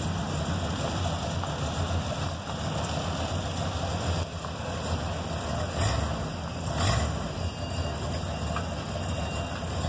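1970 Dodge Coronet R/T's V8 engine idling steadily.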